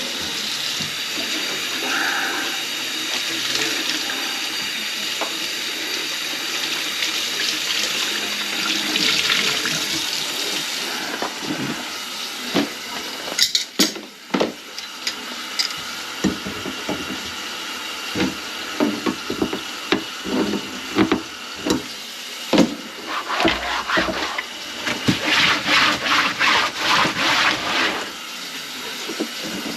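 Water running steadily into a kitchen sink. About halfway through it gives way to a string of knocks and clatter over fainter water, ending in a quick run of about four taps a second near the end.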